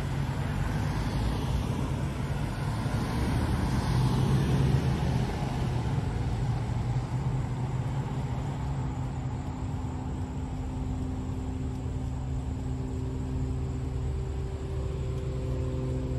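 Cars driving through a street intersection one after another, with tyre noise and engine hum. One passes closer and louder in the first few seconds, and a steady low engine hum runs under it all.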